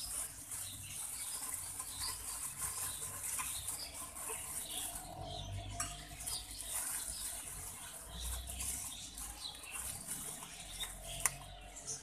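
Plastic bags rustling and crinkling quietly as a blue bag and a clear bag of powdered hand-feeding formula are unwrapped by hand, with a few small clicks.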